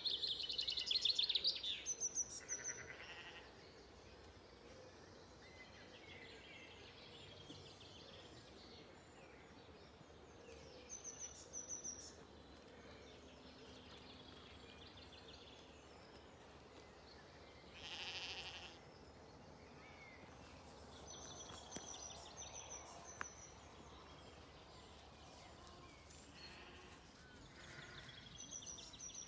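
Songbirds in a dawn chorus: a loud, rapid trilling song at the start, short runs of thin high notes coming back every few seconds, and fainter singing between them, with one brief louder call about two-thirds through.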